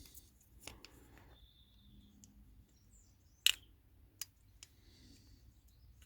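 A few faint, sharp clicks and taps of small metal carburettor parts being handled, the loudest about three and a half seconds in.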